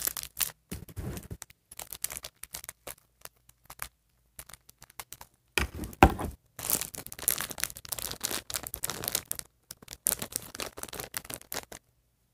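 Blind packs of doll accessories being torn open by hand: irregular bursts of tearing and crinkling, with a lull a few seconds in and the loudest rip about halfway through.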